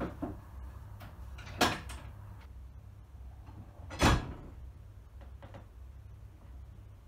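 Levers in a mechanical signal box lever frame being pulled over, giving two heavy metal clunks about two and a half seconds apart, with a couple of lighter knocks before them.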